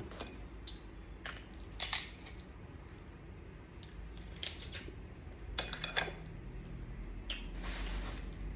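Scattered small, sharp clicks and crackles from a mud crab being pulled apart and eaten, about nine over a few seconds, over a low steady hum.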